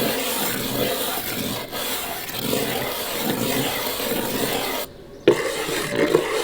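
A hairbrush scraped over a box, making a steady rasping scrape that stops for a moment about five seconds in and then starts again.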